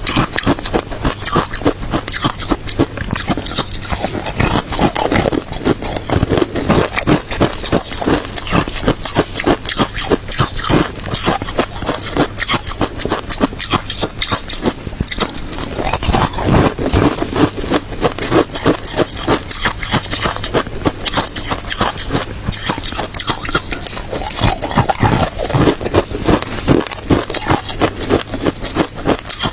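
Close-up chewing of crunchy shaved ice with matcha: a dense run of sharp crunches, several a second, with softer mouth sounds now and then between bites.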